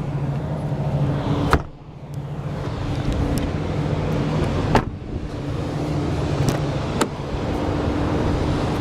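Car engine idling steadily with a low hum, broken by three sharp clicks: about a second and a half in, near the middle, and about seven seconds in.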